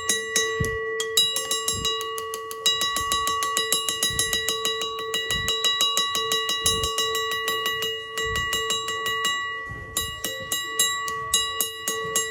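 A bell rung rapidly and continuously, its clapper striking several times a second so the ringing tone never dies away, with a short letup about nine seconds in before it picks up again.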